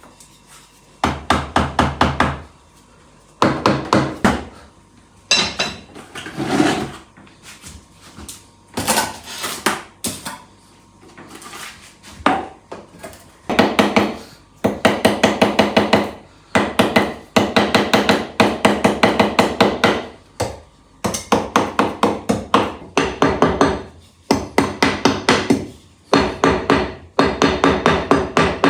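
Repeated striking in rapid bursts of many blows a second, with a ringing tone, broken by short pauses.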